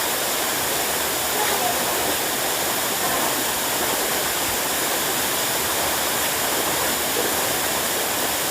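Waterfall pouring steadily, a constant loud rush of falling water with no change in level.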